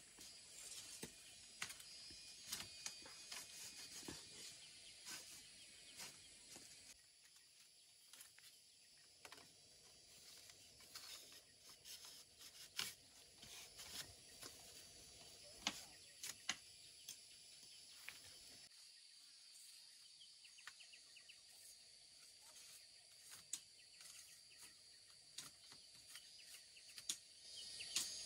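Scattered light knocks and clicks of split bamboo slats being handled and set into a bamboo fence, over a faint steady chirring of insects.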